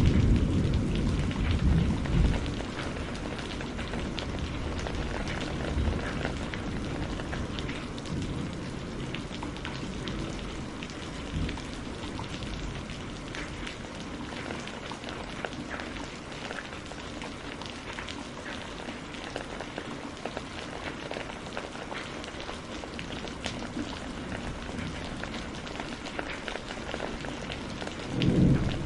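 Steady rain falling with scattered pattering drops. A roll of thunder dies away over the first couple of seconds, and another low rumble of thunder swells briefly near the end.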